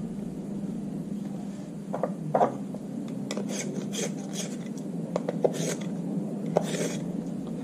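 Art Grip Aquarelle coloured pencil being sharpened after its lead broke: several short bursts of scraping rasps of wood and lead, starting about two seconds in.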